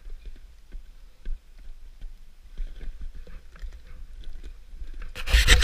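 Crampons and boots crunching and scraping on brittle ice in scattered small clicks and scuffs as a climber is lowered on a rope, over a low rumble of wind on the helmet camera's microphone. A loud burst of scraping noise comes near the end.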